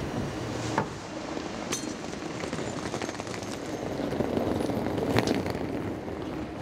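Train station platform ambience: a steady wash of noise with a few sharp knocks and clicks, the loudest about five seconds in.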